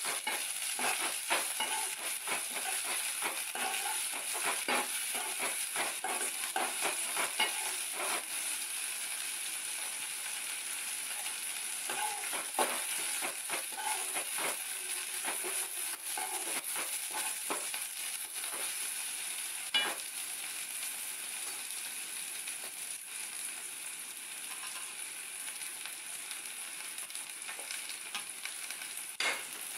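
Chopped onion and green chilli frying in oil in a metal kadai on a gas burner, a steady sizzle throughout. A steel spoon scrapes and clacks against the pan as the mix is stirred, most densely in the first eight seconds and again around twelve to fifteen seconds in. There is a single sharp clack about twenty seconds in and another near the end.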